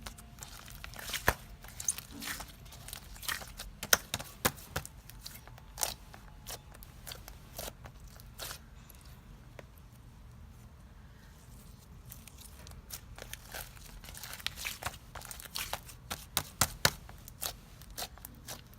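Clay slime being pressed and stretched by hand, giving irregular sharp clicks, pops and crackles. It goes quieter for a few seconds midway, then picks up again.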